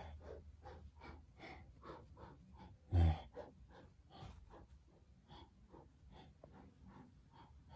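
A person's voice making short breathy puffs, about three or four a second, with one low thump about three seconds in.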